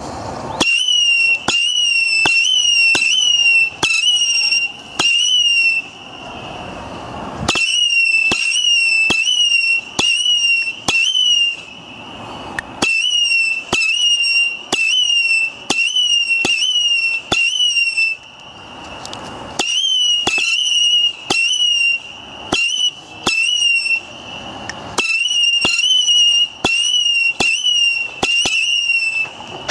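Lesli 'Highrise / Sound Experiment' firework battery firing shot after shot: each a sharp pop followed by a short warbling whistle of about half a second. The shots come roughly one to two a second, in runs broken by brief pauses about every six seconds.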